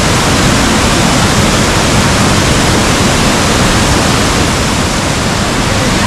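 Waterfall: a loud, steady rush of falling water, even and unbroken.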